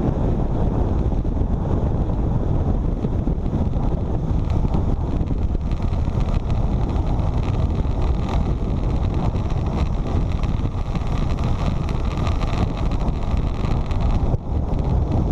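Strong wind buffeting the microphone of a motorcycle riding at speed through a windstorm, over the low running and road noise of the Suzuki V-Strom 650.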